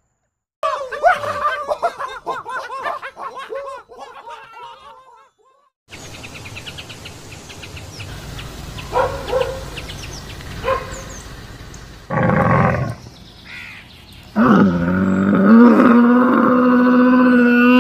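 Several different animal calls one after another: a fast run of wavering, chirping calls, then a few short calls over background noise, a brief loud cry, and near the end one long, steady, held call.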